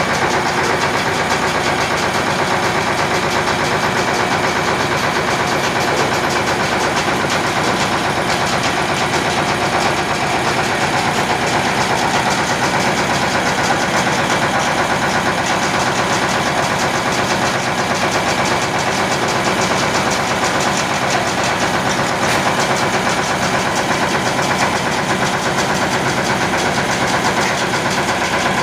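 YMM 20 rice milling machine running steadily under load, driven by a Yanmar TF 300 single-cylinder diesel engine: a loud, even mix of diesel engine running and milling machinery.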